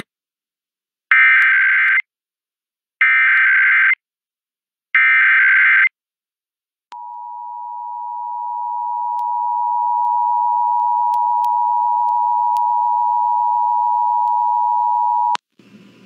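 Emergency Alert System alert tones: three short bursts of SAME header data tones, then the two-tone attention signal (853 and 960 Hz). The attention signal grows louder over its first few seconds, holds steady for about eight seconds in all, and cuts off suddenly.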